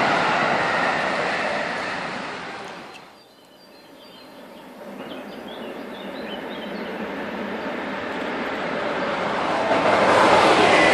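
Freight trains passing on the line: the rumble and clatter of one train fades away in the first three seconds, and after a short lull a second freight train, led by an SNCF Fret locomotive, grows steadily louder and passes close by near the end.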